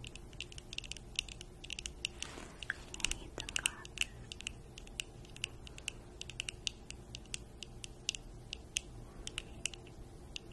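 Close-miked ASMR clicking: irregular, crisp little clicks and crackles, several a second, with a brief soft whisper a couple of seconds in.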